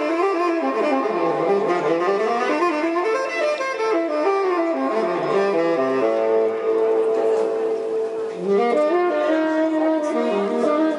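Background music led by a saxophone playing a smooth melody over accompaniment, with one long held note a little past the middle.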